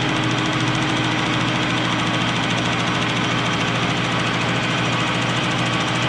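Grizzly G0776 gunsmithing lathe running steadily under power while its tool takes a facing cut across the end of a spinning workpiece: an even motor and gear hum with the cutting noise over it.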